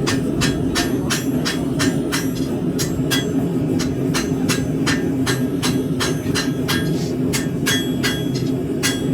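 Hand hammer striking hot high-carbon steel on an anvil in a steady run of blows, about three a second, some with a short metallic ring, over a steady low rumble.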